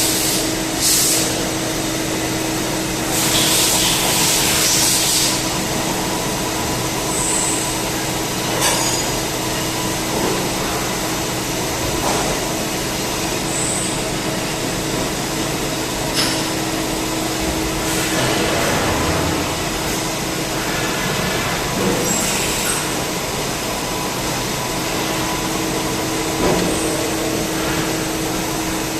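CNC turning lathe running with a steady hum and a held tone. Short bursts of hiss come early on and around three to five seconds in, and scattered clicks and knocks run through it.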